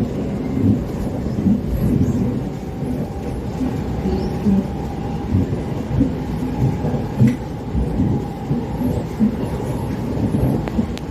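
SMRT R151 metro train running between stations, heard inside the car: a continuous low, uneven rumble with irregular thuds, plus a faint steady whine. This is the weird sound that the uploader suspects comes from the wheels.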